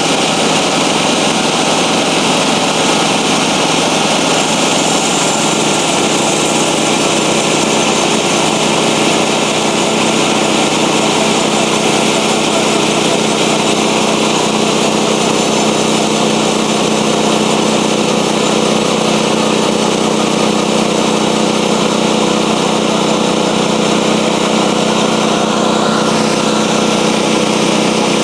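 Norwood portable bandsaw mill running steadily at full throttle, its small engine and band blade going through a cut in a log. The blade is blunt.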